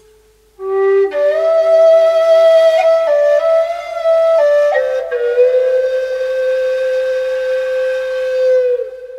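A solo wind instrument playing a slow melody: after a brief pause, a few stepped notes, then one long held note that fades away near the end.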